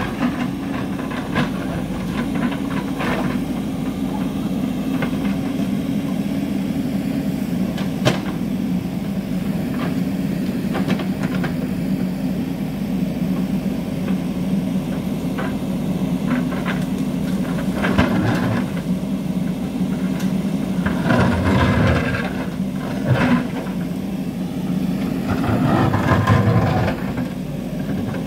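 JCB 3DX backhoe loader's diesel engine running steadily under digging work, with scattered knocks and scrapes of the bucket on rock and soil. It gets louder in two spells, about three-quarters of the way through and near the end.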